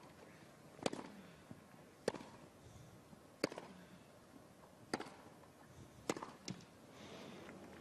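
Tennis rally on a grass court: rackets striking the ball, six sharp hits roughly every second and a half, the last two close together.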